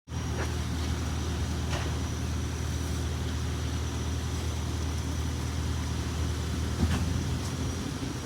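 An engine running steadily with a low, even hum, with a few faint knocks.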